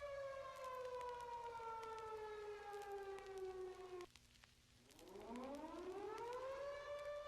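Air-raid siren wailing. It holds a steady pitch, slides down for about four seconds and cuts off abruptly, then after about a second of silence winds back up to its pitch and holds. Faint crackling clicks run underneath.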